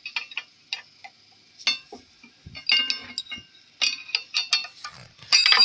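Hand tools clinking and tapping against the steel parts of an engine-to-pump coupling while working at an Allen key bolt. It is an irregular series of sharp metallic clinks with a brief ring after each, coming thicker in the second half with a loud cluster near the end.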